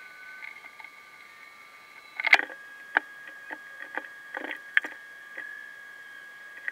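Sped-up household sound: a steady high hum with a run of about eight sharp clicks and knocks, the loudest a little over two seconds in.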